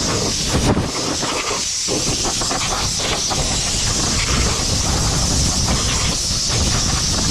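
Compressed air from an air compressor blow gun, blowing in a loud, steady hiss to clear dust and debris off the stripped metal.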